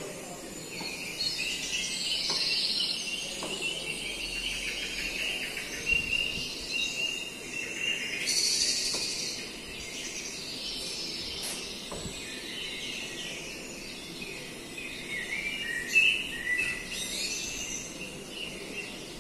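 Recorded birdsong, many short chirps and calls, playing from a nature video through the interactive flat panel's speakers, with a few light taps.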